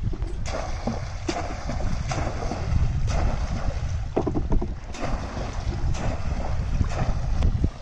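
Splashes of a bamboo polo fishing trap being thrust down into shallow water again and again, about once a second, over a steady low rumble of wind on the microphone.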